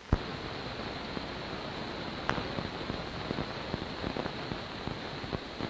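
Steady hiss and crackle of an old recording's soundtrack with no speech, peppered with small pops. A sharp click opens it and a louder pop comes a little after two seconds in.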